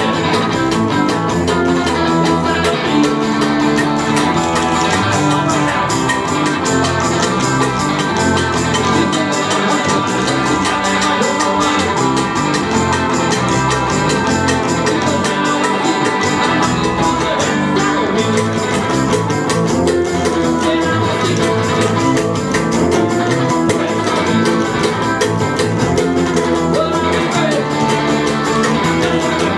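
Live band playing an acoustic cowpunk song: guitar and bass guitar playing steadily at full volume.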